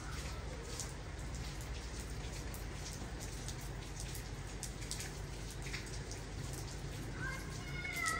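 Wet snow and drips pattering onto surfaces: a steady hiss with scattered ticks of drops. Near the end, a short high chirping call.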